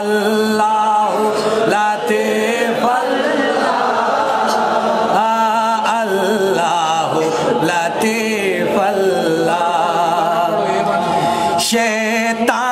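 Unaccompanied men's voices chanting a manqabat, a devotional praise poem, in a melodic wavering line. A lead reciter at a microphone is joined by several voices singing along.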